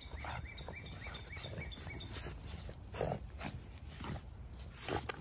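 Boston terriers making short vocal sounds as they tussle over a ball, with two louder ones about three seconds in and near the end.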